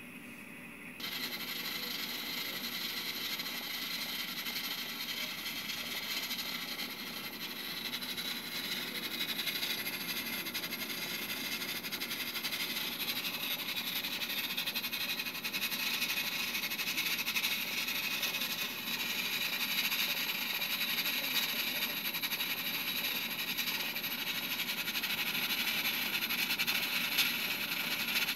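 Steam hissing steadily from the pressure vent of a Cuchen IH electric pressure rice cooker while it cooks under pressure, starting abruptly about a second in.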